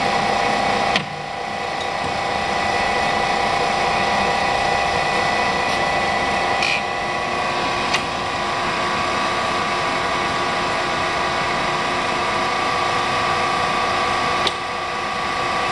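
Warner & Swasey No. 3 ram-type turret lathe running, with a steady machine whine over a mechanical din. Its note changes about a second in, around halfway and near the end, each time with a click, as the lathe is run through its ranges and feeds.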